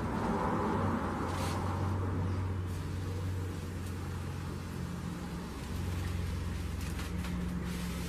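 A foil (mylar) balloon being blown up by mouth through a drinking straw, its foil crinkling in a few short crackles, over a steady low rumble.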